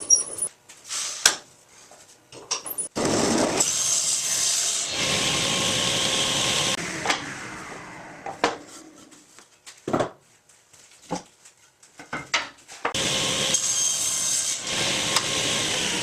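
A power woodworking tool runs twice, a few seconds each time; the first run fades slowly away as it winds down after switch-off. Between the runs come knocks and clatter of wood being handled.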